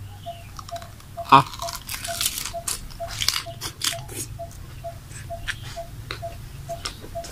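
Crisp crunching and chewing of a mouthful of cabbage-leaf miang wrap, densest in the first half. Behind it a faint, evenly repeated pip of one pitch sounds about two to three times a second throughout.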